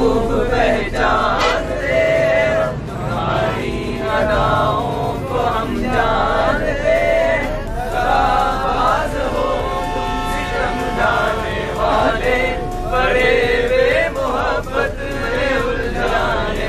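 Young men singing together, unaccompanied and chant-like, with one voice standing out over the others.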